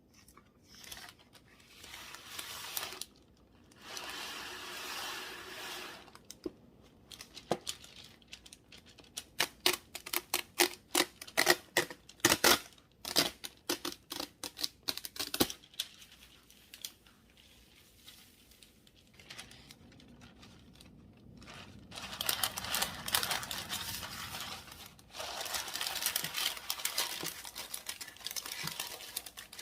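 Kitchen food-prep handling sounds: a quick run of sharp clicks and knocks, then long stretches of crinkling like plastic or wrapping being handled.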